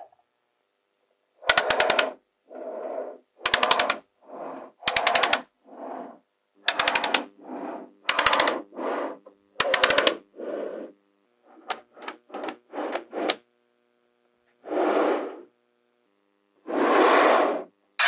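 Small magnetic balls clicking together in quick rattling runs of several clicks, about every one and a half seconds, with softer sliding and rolling sounds between the runs. Later come a handful of single clicks, then two longer scraping sounds.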